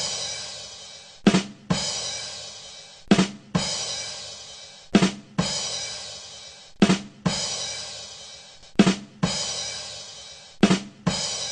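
'Ba dum tss' rimshot sting on a drum kit, looped: two quick drum hits followed by a cymbal that rings out and fades. The pattern repeats about every two seconds, six times.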